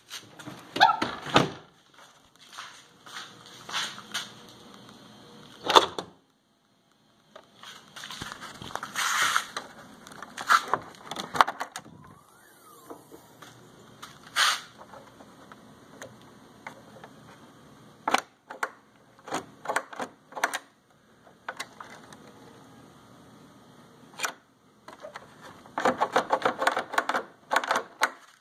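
Scattered clicks, knocks and rattles of hands working a Mk4 VW Golf/Jetta's hood release and hood latch, ending in a quick run of rapid clicking.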